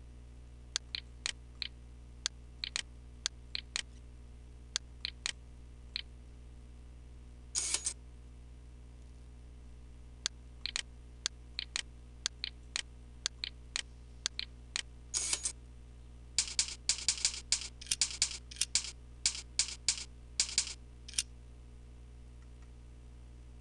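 Computer keyboard and mouse clicking: scattered single and paired clicks, then a quick run of keystrokes about two-thirds of the way in, over a steady low electrical hum.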